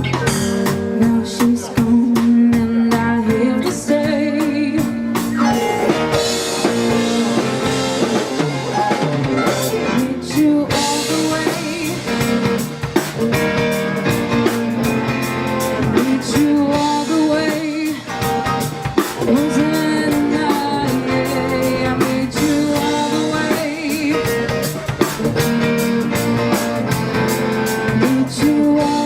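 Live rock band playing: drum kit, electric guitar and a singing voice, with regular drum hits under a wavering sung melody.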